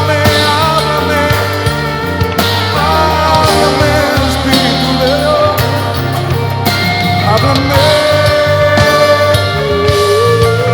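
Instrumental passage of a pop-rock ballad: the band plays a sustained lead melody over a changing bass line, with no singing.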